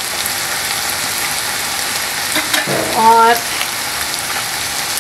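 Chicken and carrots sizzling in hot oil in a metal wok: a steady frying hiss.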